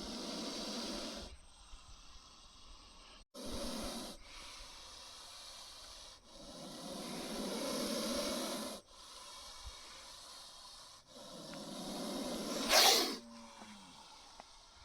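Spectacled cobra hissing in repeated long, breathy hisses with short pauses between them. There are about four hisses, one a long one of over two seconds. The last swells into a sudden, much louder burst near the end.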